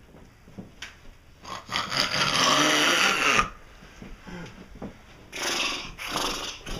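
A harsh, rasping animal-like growl lasting about two seconds, followed by a shorter one near the end.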